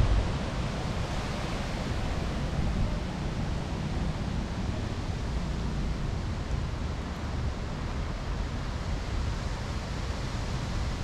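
Steady rushing outdoor noise with an uneven low rumble underneath, recorded on an action camera's microphone.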